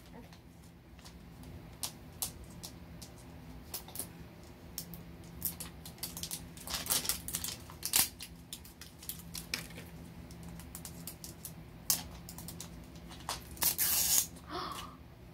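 Irregular plastic clicks and crinkling as the sealing strips are peeled off Mini Brands capsule balls and the balls are handled, with a louder rustle near the end.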